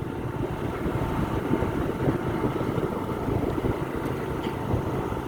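Steady low rumble of wind buffeting the microphone while on the move along a road, with a faint steady hum underneath.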